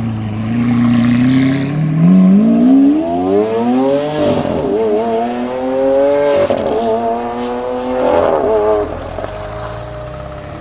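Supercar engine accelerating hard through the gears: the pitch climbs, drops at each of about three quick upshifts, then levels off and fades as the car pulls away.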